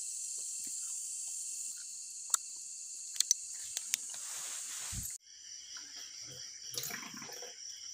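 Night insects keep up a steady, high-pitched chirring with a few sharp clicks over it. About five seconds in it cuts off suddenly, giving way to water sloshing as a hand stirs live river prawns in a plastic basin.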